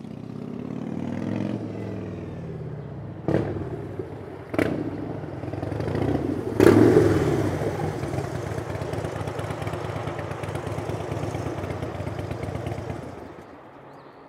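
Harley-Davidson Dyna's V-twin engine running as the motorcycle rides in and pulls up, with three sharp exhaust pops, the last and loudest about six and a half seconds in; the rider says the bike pops more than it should and could use a tune. The engine sound falls away near the end.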